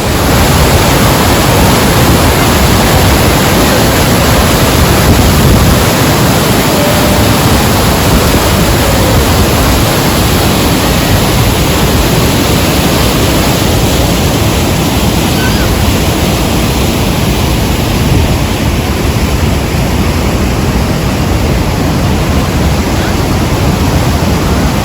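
Rhine Falls' water crashing down, a loud, steady roar.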